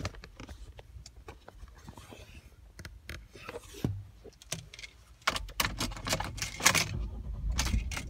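Handling noise from a camera phone moving around a car cabin: scattered clicks and knocks, growing denser and louder about five seconds in with a low rumble beneath them.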